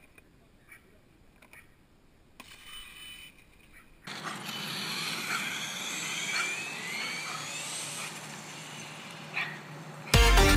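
A fast RC car's motor whining over a rushing hiss, its pitch rising and falling as it speeds up and slows, after a few seconds of faint clicks. Loud electronic music cuts in just before the end.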